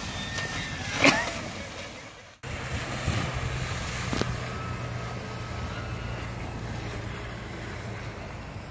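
A steady low motor hum under outdoor noise, with a sharp knock about a second in.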